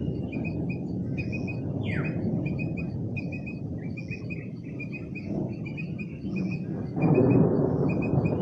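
Small birds chirping over and over in quick runs of two or three high notes, with one falling call about two seconds in. Under them runs a steady low rumbling noise, louder than the birds, that grows stronger about seven seconds in.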